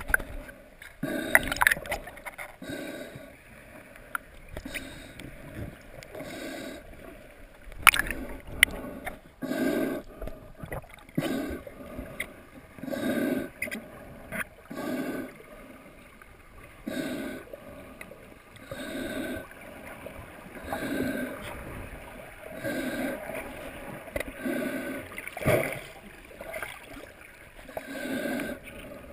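Muffled underwater water movement heard through a submerged camera: a rushing, gurgling swell that comes back about every one to two seconds, with a couple of sharp knocks.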